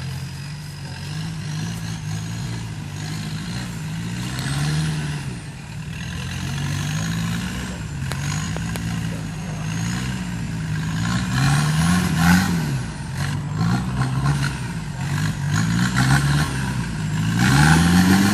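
Off-road 4x4 truck engine revving up and dropping back again and again under load, as when working over rough ground. A high whine rises and falls with the revs. The revs peak hardest about twelve seconds in and again near the end.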